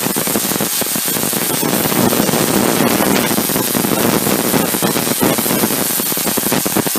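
Home-built spark gap Tesla coil running: a loud, unbroken, rapid crackling buzz from its sparks and spark gap.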